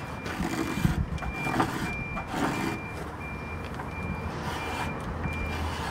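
A vehicle's reversing alarm beeping steadily: a single high tone repeating about every 0.7 s. A few short strokes of a small blade scraping the weathered surface of a wooden pallet board sound in the first half.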